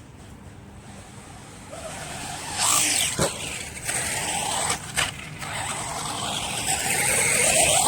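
Electric RC monster truck on a 3S LiPo battery accelerating with a rising motor whine and tires churning dirt, with two sharp knocks about three and five seconds in, typical of the truck hitting the ground off jumps.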